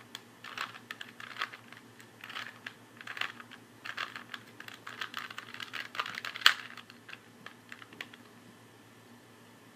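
Rubik's Cube being twisted by hand: quick runs of plastic clicks as its layers turn, stopping about seven seconds in.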